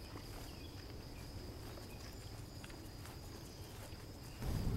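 Insects trilling steadily in the meadow, one high, unbroken tone, with soft footsteps on the grassy trail. A louder low rumble comes in near the end.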